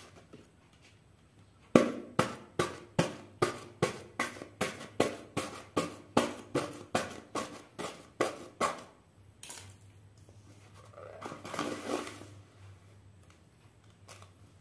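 Kitchen knife stabbing and slicing into a paper printout, a run of about twenty sharp knocks at roughly three a second. After a pause, a short rustle of paper being torn and peeled back.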